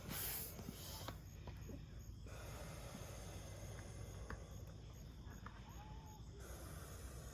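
Faint outdoor ambience: a steady low rumble with a few soft clicks, a brief hiss in the first second and a short bird chirp about six seconds in.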